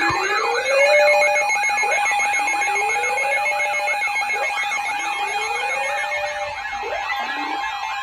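Layered electronic emergency-alert alarm and siren tones: a warbling tone rising and falling about twice a second over a steady tone, with a lower tone sweeping upward every couple of seconds.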